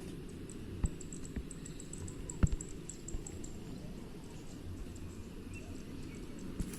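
Rapid high-pitched insect chirps, strongest in the first half, over a steady low rumble, with a few sharp knocks, the loudest about two and a half seconds in.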